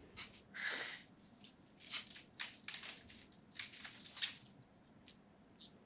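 Knife peeling a crisp apple: a run of short, irregular crunching scrapes, one longer stroke near the start and a sharper one about four seconds in.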